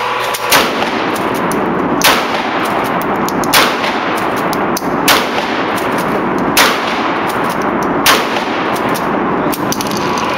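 Mossberg 500 Cruiser pistol-grip pump-action shotgun fired six times in a steady rhythm, about a second and a half between shots.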